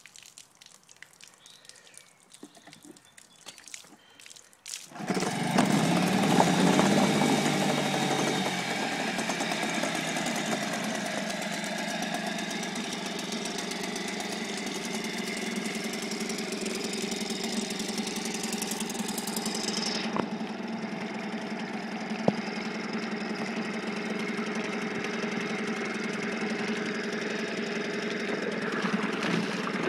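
1989 Yamaha 3 HP outboard (model 3SG), a single-cylinder two-stroke, catching about five seconds in after some faint clicks, running fast for a few seconds and then settling to a steady idle. Its lower unit runs in a bucket of water, which churns with the exhaust.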